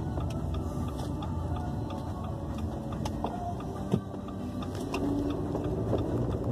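Steady low background rumble with scattered faint clicks, and one sharper click about four seconds in.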